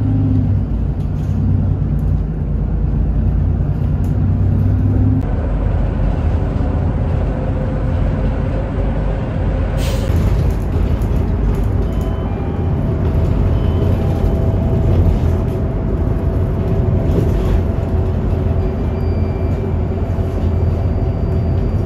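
Road and engine noise of a moving car, a steady low rumble, heard from inside the cabin. The sound changes abruptly about five seconds in and again about ten seconds in.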